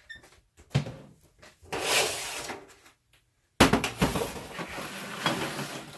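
Large metal sheet pan handled and set down on a metal worktable, landing with a sudden clatter about three and a half seconds in, after a stretch of rustling and handling noise.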